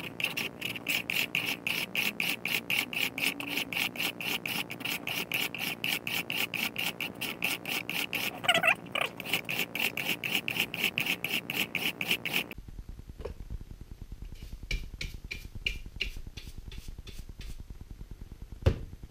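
StewMac fret-beveling file rasping in rapid, even strokes along the ends of stainless steel frets on a maple guitar neck, the footage sped up. About two-thirds of the way through it cuts off, and fainter, sparser strokes follow, with one sharp knock near the end.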